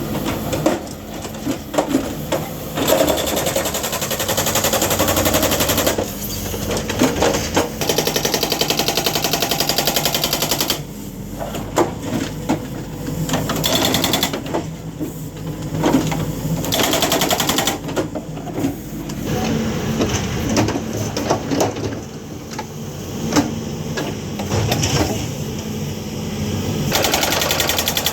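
Hydraulic breaker hammer on an MST backhoe loader pounding in several bursts of a few seconds, each a rapid, even hammering, with the machine's engine and rough knocking between bursts.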